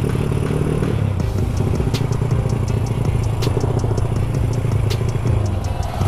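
Motorcycle engine running steadily while under way, with a fast, even ticking over it from about a second in.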